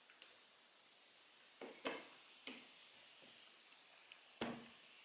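A faint, steady sizzling hiss, broken by several sharp clicks and taps, the loudest about two seconds in and near the end.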